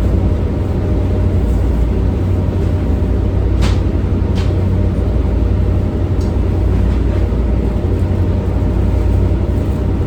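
Steady low drone of a towboat's diesel engines, with a few brief knocks about four and six seconds in.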